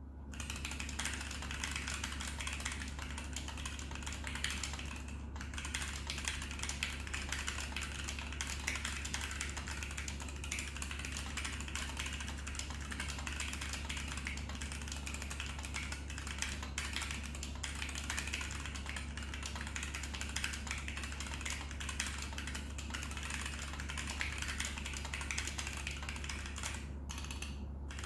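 Continuous fast typing on a mechanical keyboard with linear Gateron Yellow switches and blank DSA-profile keycaps, a dense run of key clacks with short pauses about five seconds in and near the end.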